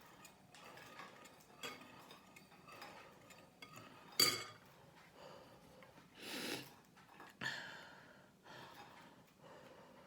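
A person breathing in deeply and sniffing under a towel over a bowl of hot water for a steam inhalation, with two longer breaths about six and seven and a half seconds in. One sharp click about four seconds in is the loudest sound.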